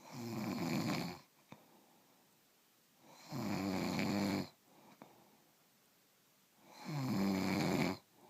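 Snoring in a steady rhythm: three snores, each about a second long, about three and a half seconds apart, with quiet breathing between.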